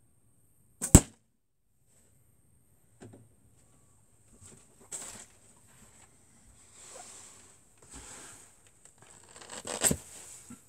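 An arrow striking a foam archery target with one sharp thud about a second in. Quieter scuffing and shuffling follow, then a louder knock near the end as a hand grips the arrows to pull them from the target.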